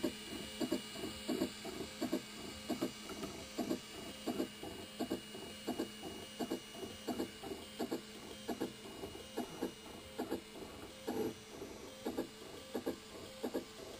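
Ultimaker 2 Extended 3D printer running a print: its stepper motors whir in short, quick strokes as the print head moves, about two or three a second, over a steady hum.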